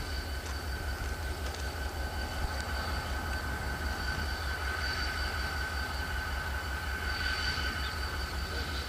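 EMD GP35 diesel-electric locomotive, with its turbocharged 16-cylinder engine, running as it leads a freight train at low speed: a low engine drone with a steady high-pitched whine over it.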